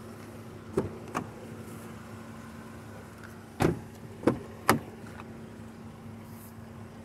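Chevy Cruze's Ecotec engine idling with a steady hum, while a car door is handled: several sharp clicks and clunks, with three in quick succession about halfway through as the rear door is unlatched and swung open.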